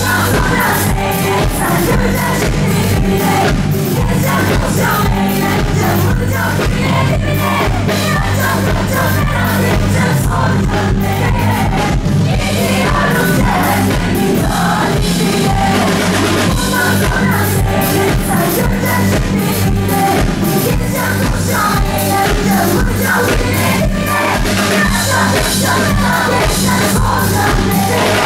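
Live Turkish pop music: a female singer singing into a microphone over a live band, with drum kit and bass keeping a steady dance beat.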